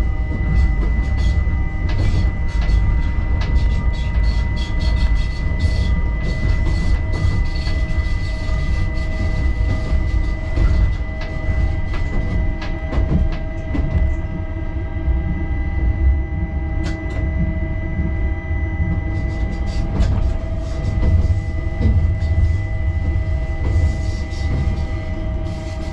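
Stadler ABe 4/8 electric railcar running along the track, heard on board: a steady low rumble of the wheels on the rails with a steady high whine from the traction electrics, and many short clicks and knocks from the track.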